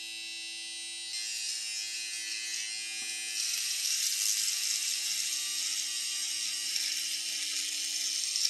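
MicroTouch electric beard trimmer running with a steady buzz, its blades rasping through chin-beard hair. The rasp grows louder about a second in and again at about three seconds, as the trimmer is pressed into the beard.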